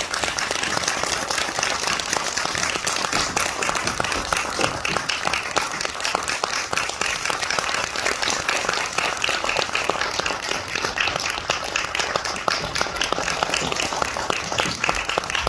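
Audience applauding steadily, many hands clapping in a dense, even patter.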